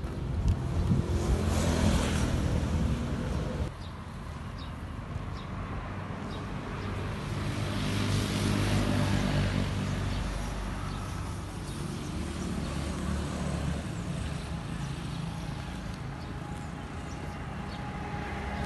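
Outdoor ambience with the engines of passing vehicles, swelling and fading twice: loudest in the first three seconds or so, then again about eight to ten seconds in. The sound drops suddenly a little before four seconds in.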